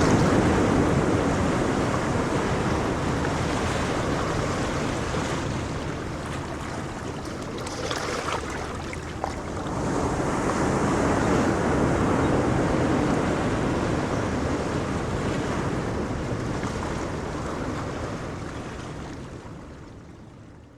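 Ocean waves washing onto a shore: a steady rush of surf that swells, eases off, swells again, then fades out near the end.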